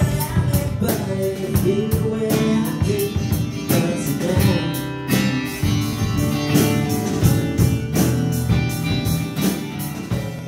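Guitar music with a steady drum beat.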